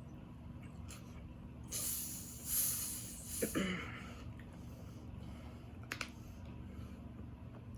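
A person breathing out hard twice, then a short falling grunt, with a single click about six seconds in.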